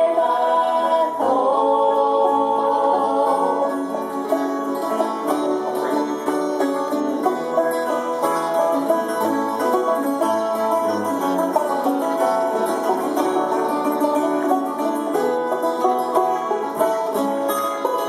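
Acoustic string trio playing an instrumental passage: banjo, acoustic guitar and a long-necked, round-bodied plucked string instrument picking together in a folk or bluegrass style. Held chord notes at the start give way to busy picking about a second in.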